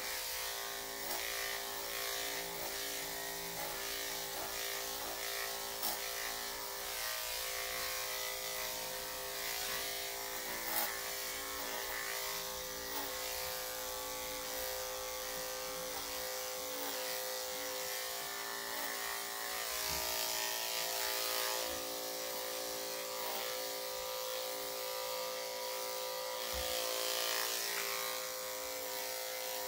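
Corded electric dog-grooming clipper running with a steady hum, its long blade cutting through the dog's fur on the chest and front legs. The cutting hiss grows louder for a couple of seconds past the middle and again near the end.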